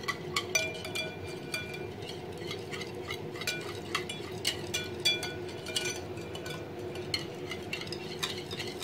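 Wire whisk beating yogurt in a glass bowl, its wires ticking and clinking irregularly against the glass, over a steady low hum.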